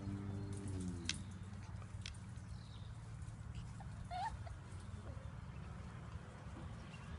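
West Highland White Terrier puppies moving about: scattered light clicks and taps, and a short high squeak about four seconds in, over a low steady rumble. Background music slides down and stops about a second in.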